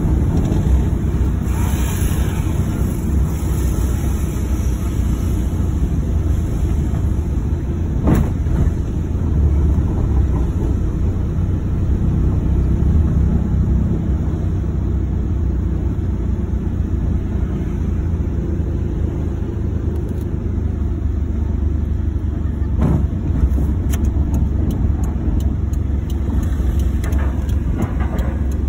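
Car driving slowly, heard from inside the cabin: a steady low engine and road rumble, with a few brief clicks.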